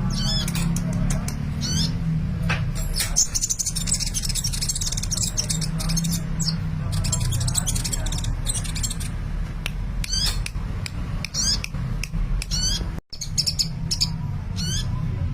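Sunbird (the bird Indonesian keepers call 'kolibri') singing busily: rapid runs of high, squeaky chirps and trills with sharp ticks in between, over a steady low hum.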